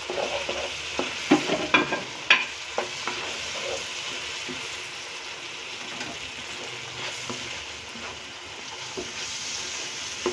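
Potatoes, onion and freshly added ground spices frying in oil in a wok, sizzling steadily, while a spatula stirs and scrapes through them, knocking against the pan several times in the first few seconds.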